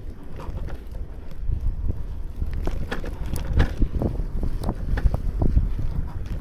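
Bicycle being ridden on a snowy street, heard through a bike-mounted action camera. Wind rumbles on the microphone, with frequent irregular clicks and knocks from the bike and the road.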